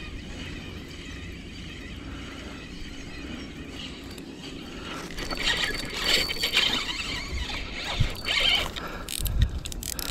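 Spinning reel squealing and clicking under load, starting about five seconds in, as a hooked catfish pulls against the bent rod. There are a few dull knocks near the end.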